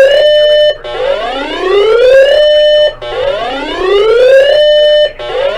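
Electronic whooping alert siren: a note that sweeps upward in pitch over about two seconds, holds for a moment at the top and cuts off abruptly, repeating in a steady cycle. A broadcast warning signal.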